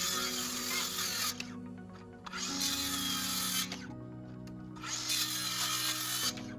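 Power saw cutting firewood in three short runs, stopping between cuts, over background music.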